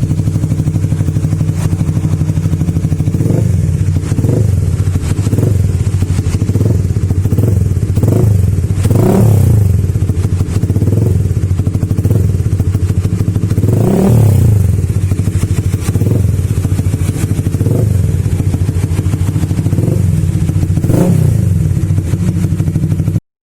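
Motorcycle engine running through an ARM Racing CNC carbon GP aftermarket exhaust, idling with short throttle blips about once a second. Three bigger revs come at about nine, fourteen and twenty-one seconds in, and the sound cuts off suddenly near the end.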